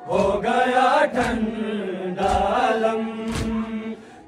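Men chanting an Urdu noha, a Shia lament, together in long held sung lines, with three sharp chest-beating strikes (matam) about a second apart. The singing dips briefly near the end.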